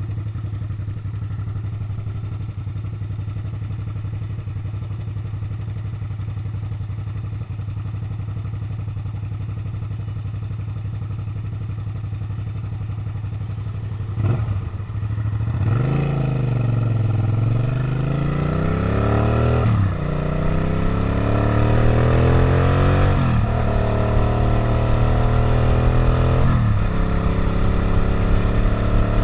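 Suzuki SV650's V-twin engine idling steadily, then a clunk about fourteen seconds in, after which the bike pulls away and accelerates. Engine pitch rises and drops back with each upshift, about four times.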